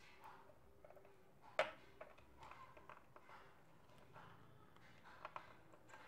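Faint plastic clicks and handling of Tower Pro micro servos and their plastic horns being pressed together, with one sharp click about a second and a half in and two smaller ones near the end.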